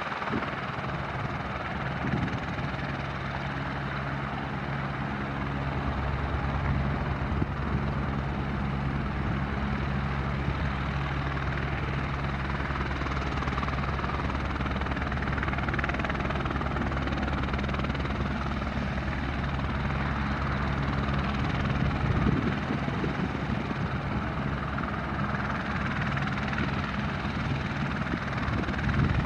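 Airbus H125M helicopter running, with the steady low beat of its rotor over the noise of the turbine, swelling a little in the middle and easing again.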